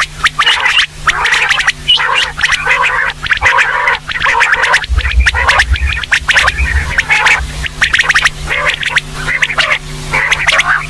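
Female quail calling without a break, a rapid run of short, closely repeated calls over a steady low hum. A low rumble comes in about halfway through.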